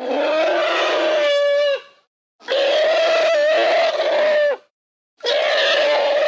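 Monster vocalisation sound effect for an elephant-like creature: three long, loud animal-like cries of about two seconds each, separated by short silences. Each cry holds a steady pitch, and the first bends upward at its end.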